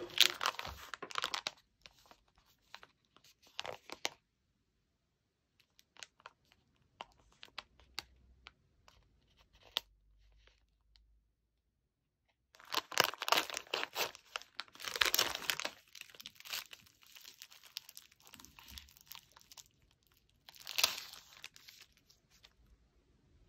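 Plastic snack packaging crinkling in irregular bursts as it is handled and torn open, with a dense stretch of rustling past the middle and one more short burst near the end as an inner plastic wrapper is pulled off.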